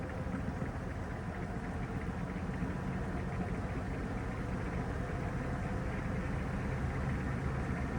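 Panasonic top-loading washing machine running mid-cycle: a steady hum of motor and drum at an even level.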